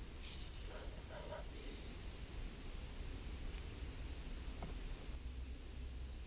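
Faint outdoor ambience with a bird repeating a short, high whistle that slides downward, about every two and a half seconds, over a low steady rumble.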